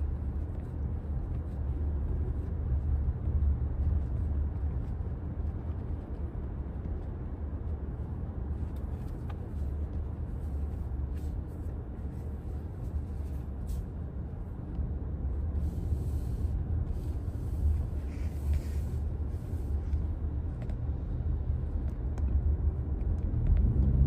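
Steady low road rumble heard inside the cabin of a 2025 Toyota Camry LE hybrid as it drives.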